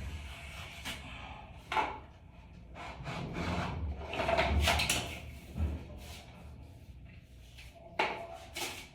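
Razor blade scraping and scoring a small raceway trim piece to cut it to length, with a few short knocks as the pieces are handled.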